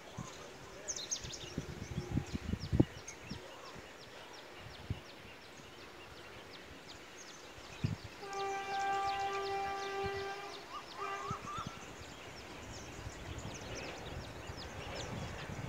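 Train horn sounding one long, steady blast about halfway through, then a brief second toot, against many small birds chirping. A few low thumps in the first few seconds.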